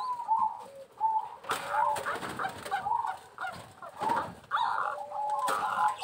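Zebra doves (perkutut) cooing, several calls overlapping, with a run of short, evenly spaced notes in the second half and a few sharp knocks among them.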